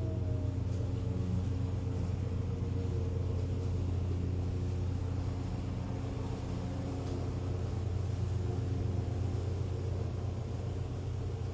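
Outdoor warning sirens at the end of a test: a siren's falling tone winds down and fades out in the first second or so. Faint steady tones from distant sirens carry on under a steady low rumble, which is the loudest sound.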